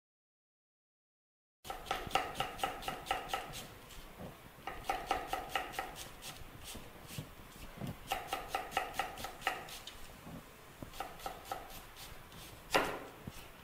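Kitchen knife slicing a red onion on a wooden chopping board, with quick knocks of the blade on the board in runs of several strokes a second. The chopping starts after about a second and a half of silence, and there is one louder knock near the end.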